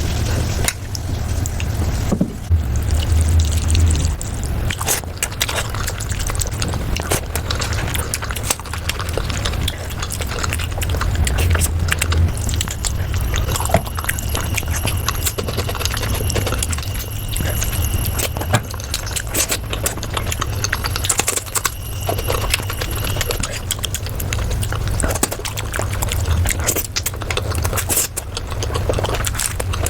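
Eating sounds of chicken curry being eaten, sped up to double speed: many quick clicks of chewing and mouth noises over a steady low hum.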